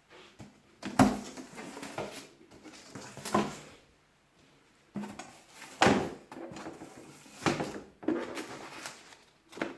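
Handling noises from unpacking a wet and dry vacuum cleaner: a series of knocks and clatters with rustling and scraping, in two busy stretches separated by a short lull about four seconds in.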